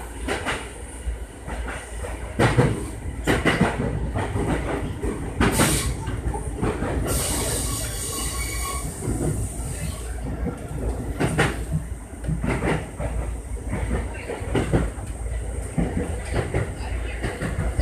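Sotetsu electric commuter train running on rails, heard from the cab: a steady low rumble with irregularly spaced knocks as the wheels cross rail joints and points. There is a stretch of high hiss between about seven and nine and a half seconds in.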